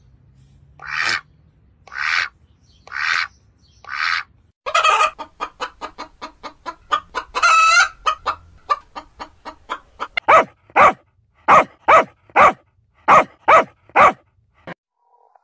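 Chicken clucking: a few spaced clucks, then a fast run of clucks working up into a cackle, then a string of loud, sharp clucks about two a second.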